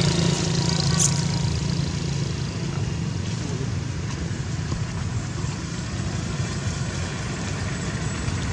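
A motor engine running steadily with a low hum, with one short sharp click about a second in.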